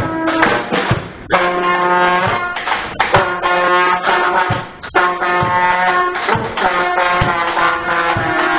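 Brass band playing live: horns sounding held notes over a steady drum beat, with the horns breaking off briefly twice.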